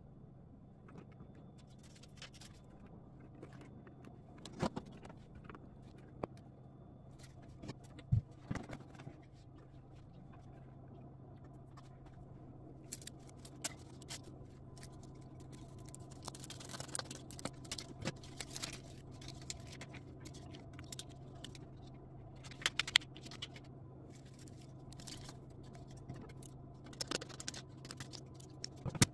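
Peel-and-stick plastic backsplash sheets being handled, cut and pressed onto the wall: scattered clicks, taps, scrapes and plastic rustling over a steady low hum.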